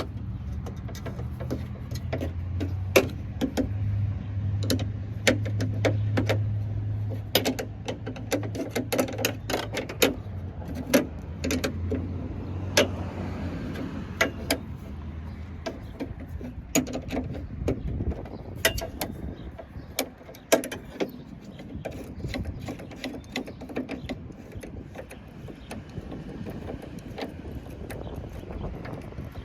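Irregular metallic clicks and clinks of a hand tool working a 10 mm bolt loose from a truck door. A low steady hum runs under the first half and then fades.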